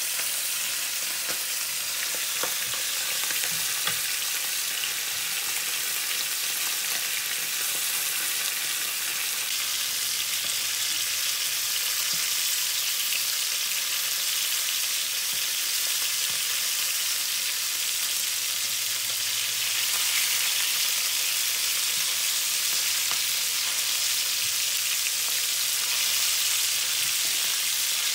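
Whole horse mackerel shallow-frying in hot vegetable oil in a non-stick pan: a steady sizzle, with a few light taps and scrapes of a wooden spatula as the fish are turned over.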